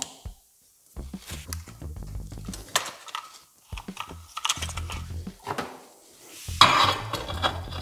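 Irregular clicks and clatter of equipment and tools being handled on a workbench, with a low rumble under some of the knocks and a louder burst of clatter near the end.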